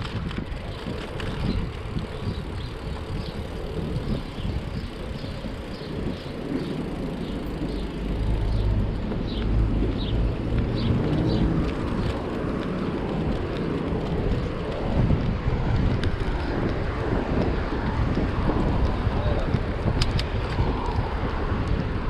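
Wind rushing over the microphone of a moving bicycle, mixed with street noise. The low rumble grows louder about eight seconds in.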